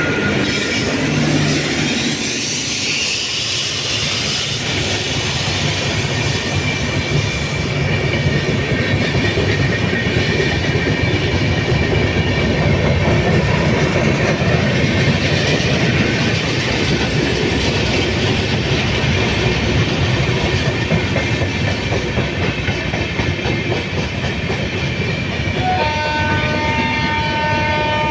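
Aronai Express passenger train running past, its wheels clattering on the rail joints over a steady rush of coaches. Near the end the locomotive's horn starts a held, multi-tone blast.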